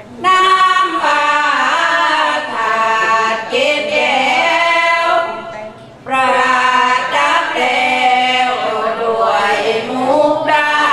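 A group of women singing sorapan, Thai Buddhist devotional chant, in the Isan melody, unaccompanied. Two long sung phrases with a brief breath pause about six seconds in.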